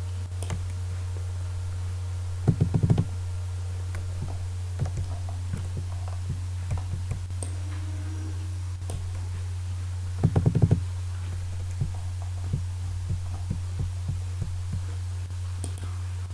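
Computer mouse and keyboard clicks over a steady low electrical hum. Two short bursts of rapid clicking, about two and a half seconds and ten seconds in, are the loudest sounds.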